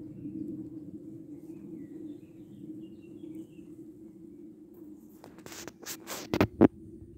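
Outdoor field ambience: a steady low hum with faint bird chirps. About five seconds in comes a quick run of rustles and knocks, the last two sharp and loud.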